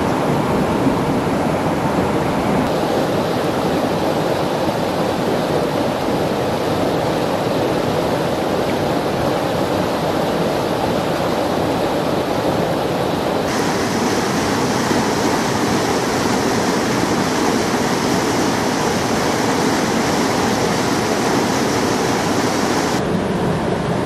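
Rushing mountain stream, water pouring over rocks in a steady loud rush. Its tone changes suddenly about three seconds in, about halfway, and just before the end.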